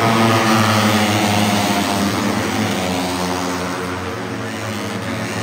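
Several Moto3 racing motorcycles' single-cylinder 250 cc four-stroke engines running at high revs as a group goes by, the engine notes falling in pitch as they pass. Loudest near the start, easing off a little later on.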